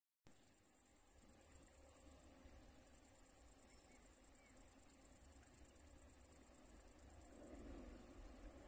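Crickets chirring in long grass: a steady, high-pitched, fast-pulsing trill that eases off slightly near the end.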